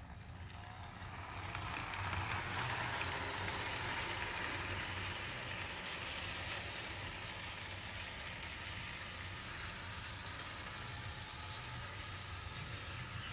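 Bachmann HO scale Alco S2 model locomotive running on its track with three grain cars in tow: the electric motor whirs and the wheels roll with faint clicks over the rails. It starts about a second in and grows louder over the next second, then runs steadily and slowly fades as the train moves off.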